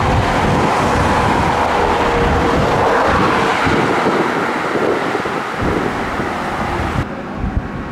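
A tram passing close by on its rails: a loud rumble of wheels on track with a faint steady motor whine that dies away, the noise easing off over the following seconds. About seven seconds in it drops abruptly to quieter street noise.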